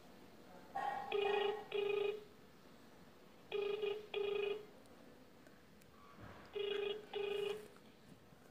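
Telephone ringback tone of an outgoing call, heard through the phone's speaker: three double rings, about one pair every three seconds, while the call is not yet answered.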